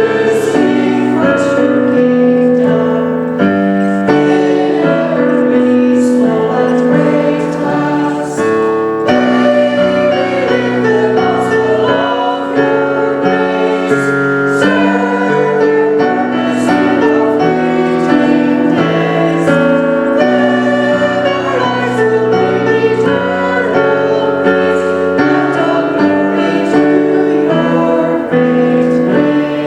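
A group of voices singing a hymn-like piece in held, sustained notes, accompanied by piano.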